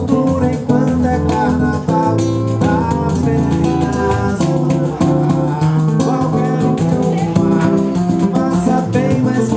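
Instrumental passage of a Brazilian samba: strummed acoustic guitar with steady rattling percussion, which the title names as plates played as an instrument.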